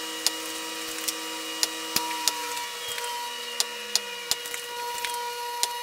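24-gram tungsten steel-tip darts thrown into a bristle dartboard: about a dozen short, sharp thocks at irregular intervals, some in quick pairs, over a steady hum.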